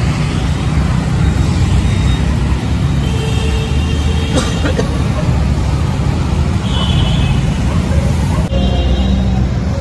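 Wind buffeting a moving camera's microphone during a bicycle ride, a steady low rumble, with street traffic beneath it and a brief click about four and a half seconds in.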